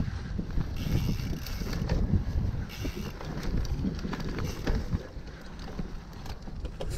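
Wind buffeting the microphone over the rumble of cyclocross bike tyres rolling on rough, sandy dirt, with many small rattles and knocks from the bike over the bumps.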